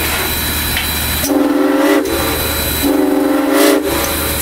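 Southern Railway No. 630's steam whistle sounding two short chord blasts about a second apart, each rising slightly in pitch as it ends, over a steady hiss: the whistle signal for the locomotive's departure.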